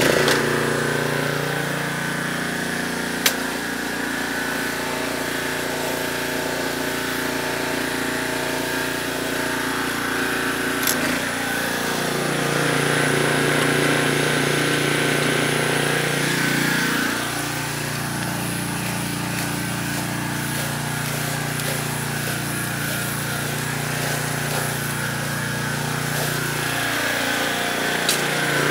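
A pressure washer's small engine running steadily after starting. Its pitch shifts about halfway through and again a few seconds later as the load changes. A few sharp clicks are heard over it.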